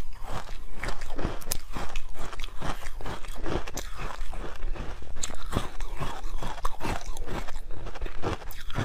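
Frozen milk ice coated in green powder being bitten and chewed: a quick run of crisp crunches, several a second.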